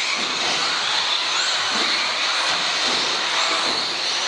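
Several electric radio-controlled off-road cars racing on a carpet track: a steady high hiss of motors and tyres, with faint motor whines rising and falling as the cars accelerate and brake.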